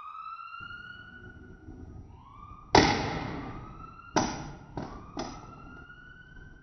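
Ambulance siren wailing in rising glides, with four sharp thuds over it, the first and loudest about three seconds in and three more in quick succession a little over a second later.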